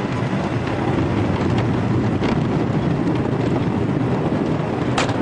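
Wooden roller coaster train rumbling and rattling along the track, with wind buffeting the microphone and a few sharp clacks, one loud clack near the end.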